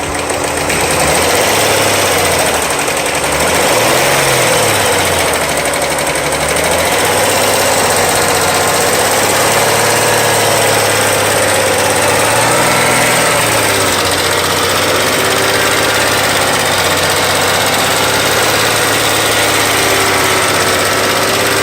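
VW Mk4 GTI VR6 engine idling with a steady tick, revved briefly twice, about 4 and 13 seconds in. The tick comes from a collapsed lifter on the intake camshaft that has worn its cam lobe down.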